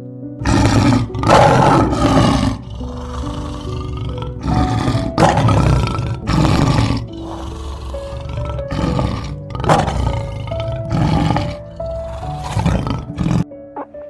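Lion roaring in a string of about ten short, deep roars, roughly one a second with a gap or two, over background music with sustained notes; the roars stop suddenly near the end.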